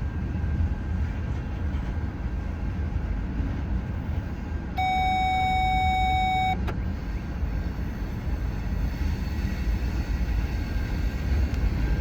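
Steady low rumble of a vehicle on the move, heard from inside the car. A single electronic beep of nearly two seconds sounds near the middle and cuts off sharply.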